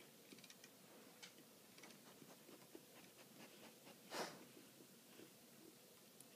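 A cat lapping water from a fish bowl: faint, irregular small wet clicks, with one louder lap about four seconds in.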